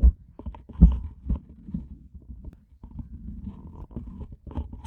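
Handling noise from the recording device being picked up and set back in place: irregular low bumps and dull rubbing against the microphone, the loudest bump about a second in.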